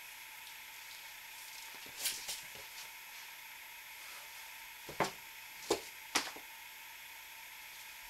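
A few short knocks and scuffs of a person getting up, handling a flat panel and stepping about, the sharpest three close together about five to six seconds in, over a steady faint hiss.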